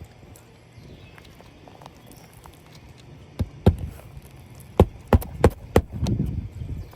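A run of six sharp knocks, spaced unevenly about a third of a second to a second apart, from hammer blows while working on asphalt roof shingles. Low rustling from handling the shingles comes near the end.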